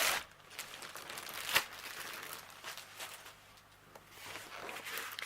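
Packaging bag crinkling and rustling softly as a rolled diamond painting canvas is handled and drawn out of it, with a sharper rustle about a second and a half in.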